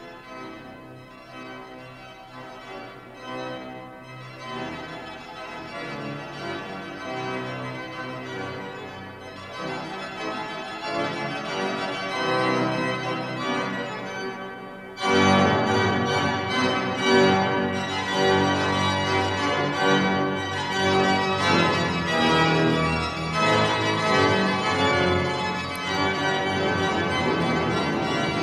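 Pipe organ playing held chords that swell steadily louder. About halfway through, the fuller organ comes in suddenly with deep bass and stays loud to the end.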